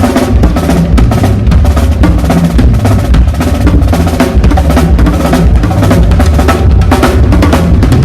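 Drum kit played at full volume during a live sound check: steady bass drum and snare hits with busy fills. Sustained low notes run underneath the drums.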